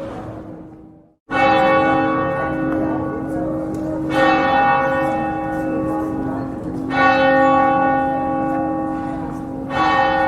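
A church bell tolled slowly: four strikes about three seconds apart, each ringing on into the next, starting after a brief break in the sound about a second in.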